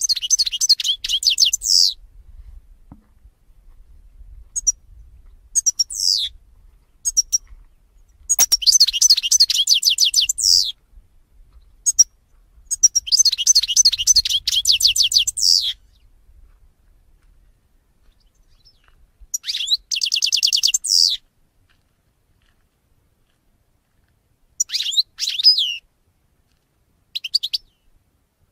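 European goldfinch singing: several phrases of fast, high twittering trills, some a second or two long and some short, separated by pauses.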